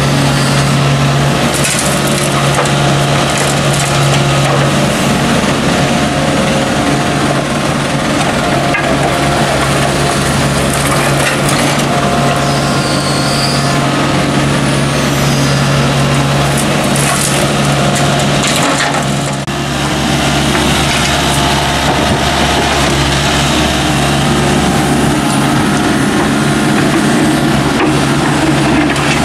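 Volvo mini excavator's diesel engine running steadily under hydraulic load, with its bucket scraping and crunching through soil and broken concrete rubble and chunks clattering as loads are dumped.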